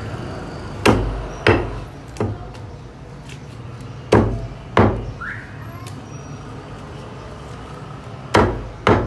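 A knife chopping through chicken on a chopping board: six heavy chops in three pairs, the two chops of each pair about half a second apart, a few seconds between pairs.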